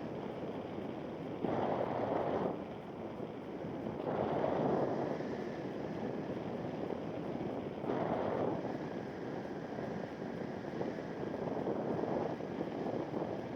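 Wind rushing over the microphone in paraglider flight: a steady rush that swells louder in gusts, about one and a half, four and a half, and eight seconds in.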